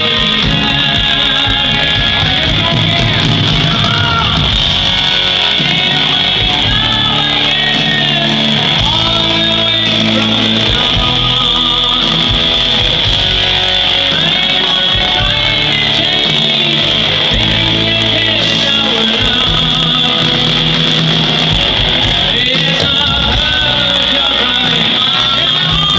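A rock band playing live in an arena, heard from within the crowd: a singer over electric guitars and drums, in a slow power ballad.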